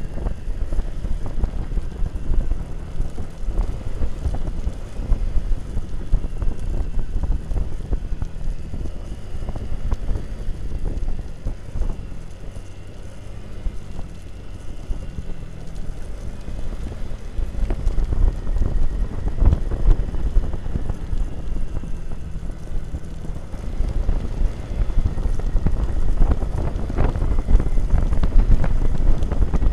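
Wind buffeting the microphone of a camera riding on a moving motorcycle, over the steady hum of the bike's engine. It eases off for a few seconds around the middle, then grows louder and gustier toward the end.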